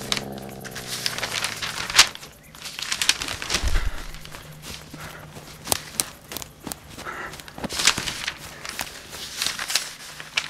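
Fast, irregular running footsteps rustling and crackling through undergrowth, with a sharp hit about two seconds in, over a faint low hum.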